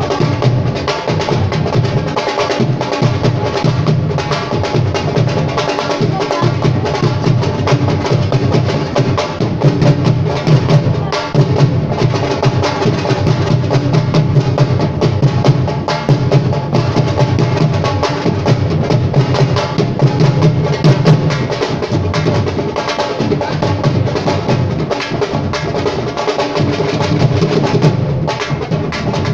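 Live music made up mostly of fast, continuous drumming with deep bass strokes, played without a break.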